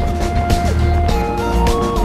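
Background music: a melody of held notes stepping between pitches, over a steady beat and bass.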